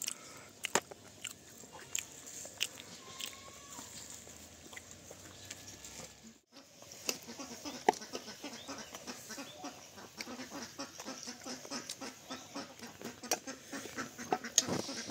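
Puri dough deep-frying in hot oil in an iron kadai: the oil sizzles with many small crackles, starting after a brief break about six and a half seconds in. Before that, scattered knocks and clicks.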